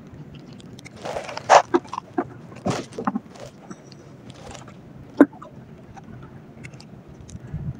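Handling noise from a spinning rod and reel held close: scattered clicks and rustles, louder about a second in, with one sharp click a little past five seconds.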